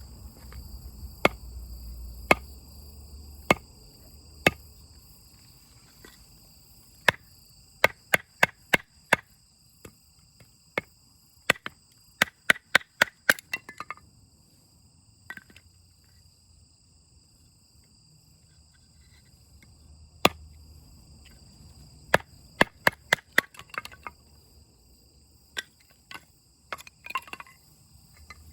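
Firewood being chopped: sharp wooden knocks, some single and some in quick runs of several blows. Insects chirr steadily underneath.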